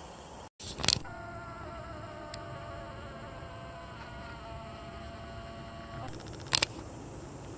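A steady buzzing hum with several pitches that starts right after a sharp click about a second in and cuts off abruptly a few seconds later, followed by a second sharp click near the end.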